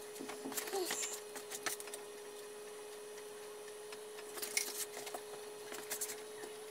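Scattered light clicks and clinks of gloved hands and tools working in a car's engine bay, over a faint steady hum.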